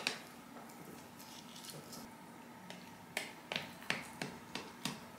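Light clicks and taps of kitchen utensils on dishes: one sharp click at the start, then a quick run of about six taps near the end.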